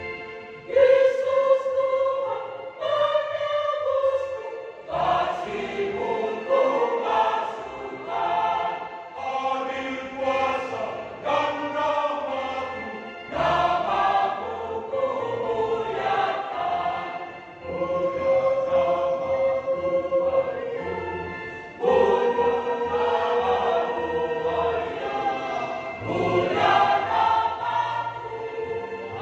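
Church choir singing in harmony, with several long held chords.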